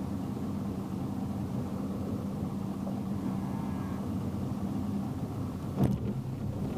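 Motorboat engine running steadily at low speed, a constant hum whose pitch drops lower about five seconds in. A single sharp knock sounds about six seconds in.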